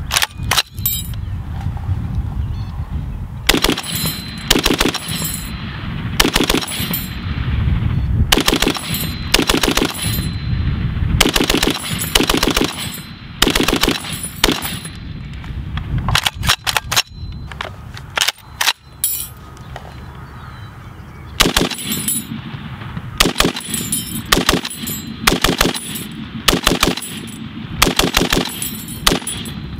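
Browning 1919A6 belt-fed machine gun in .30-06 firing on full auto in short bursts, about a dozen of them with brief pauses between.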